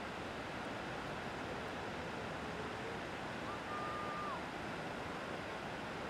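Ocean surf washing onto a beach, a steady wash of wave noise. About halfway through, a short faint tone holds for about a second, then drops away.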